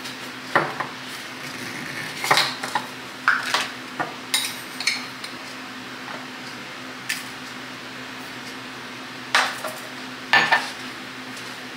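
Kitchenware handled at a counter: a metal spoon and a glass instant-coffee jar and glass mug clinking and clattering in short, irregular knocks, in two clusters, over a steady low hum.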